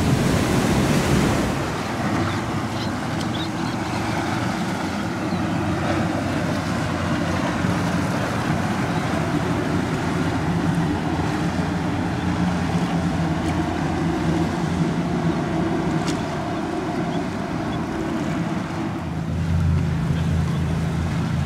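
Outboard-powered patrol boats running through choppy inlet water: a steady engine drone under the rush of wake and waves, with wind buffeting the microphone. Near the end the engine hum becomes steadier and more prominent.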